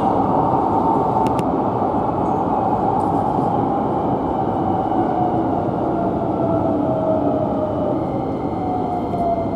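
Hankyu 9300-series electric train running, heard from inside the front car: steady rolling rumble with the traction motors' whine slowly falling in pitch as the train slows, as when braking into Takatsuki-shi station. Fainter higher tones join near the end.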